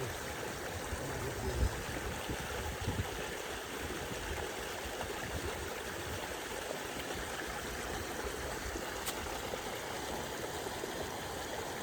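Steady rush of flowing water, an even hiss with no breaks, with a few low bumps in the first three seconds.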